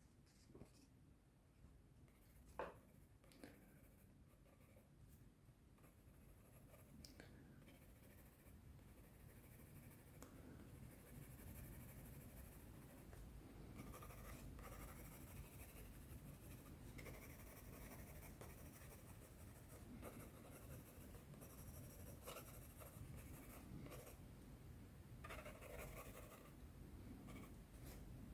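Faint scratching of a colored pencil shading on sketchbook paper, steady and soft, with a few light clicks in the first few seconds.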